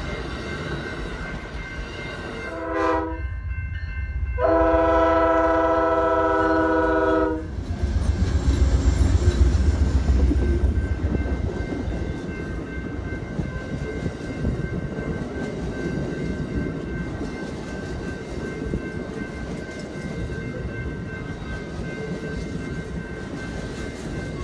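A train's air horn sounds a short chord blast and then a long blast of about three seconds. It is followed by Amtrak Superliner passenger cars rolling past, their wheels clacking rhythmically over the rail joints, loudest just after the horn and then steadier. A faint steady high tone runs underneath.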